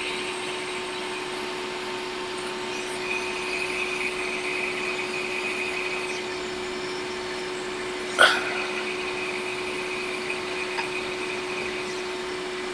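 Steady whir and hum of a small electric blower fan on a micro-soldering bench, with a hissing airflow that comes in about two and a half seconds in. A single sharp click about eight seconds in.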